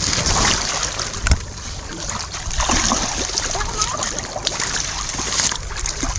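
Shallow muddy water splashing and sloshing as people wade and grope in it by hand, with one sudden sharp knock about a second in.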